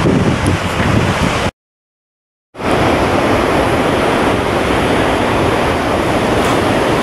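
Rushing white water of Godafoss and its river, a loud, steady rush, with wind buffeting the microphone at the start. The sound cuts out completely for about a second, about one and a half seconds in, then the steady rush of the falls resumes.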